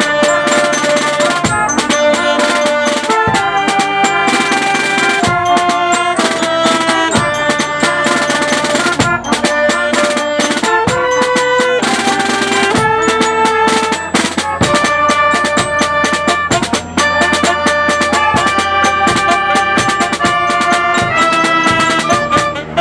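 Small student jazz band playing: trombones, trumpet and alto saxophone sounding held notes together over a drum kit.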